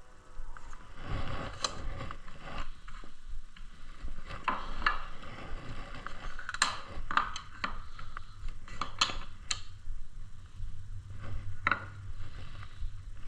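Woodworking bench handling noise: irregular light clicks and knocks of wooden parts and tools, with a low hum in the second half.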